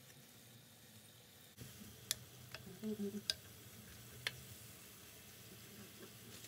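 Bofrot (puff puff) dough balls frying in oil over low-to-medium heat: a faint sizzle with a handful of sharp pops and ticks between about two and four and a half seconds in.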